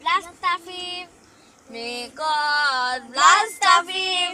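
A high-pitched voice singing short phrases of held, gliding notes, with a brief pause about a second in.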